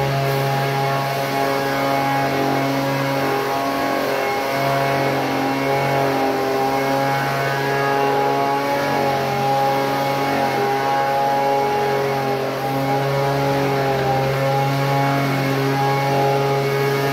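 Small engine running steadily at a constant speed, a level droning hum.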